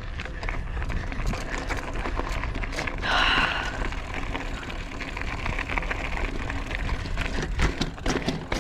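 Mountain bike rolling over a dirt trail: tyre noise with scattered clicks and rattles, and a louder rush of noise about three seconds in.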